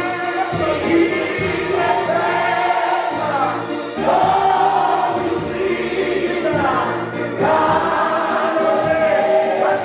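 A gospel choir singing a slow song in long held phrases, with brief breaks between phrases, over a low sustained accompaniment.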